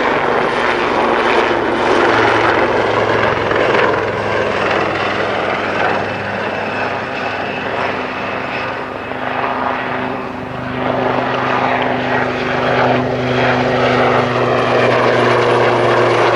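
Lynx-family naval helicopter in display flight: a steady rotor thrum over turbine noise, fading somewhat about two-thirds of the way in as it flies farther off, then growing louder again as it comes back closer.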